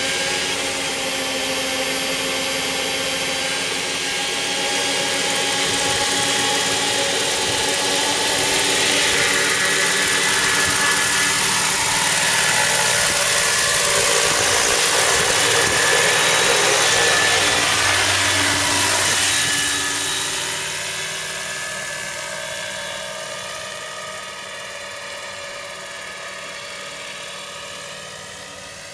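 Radio-controlled scale model SA 315B Lama helicopter running: a steady high engine whine and rotor noise. It grows louder as it lifts off with a slung load, and it fades from about two-thirds of the way in as it climbs away.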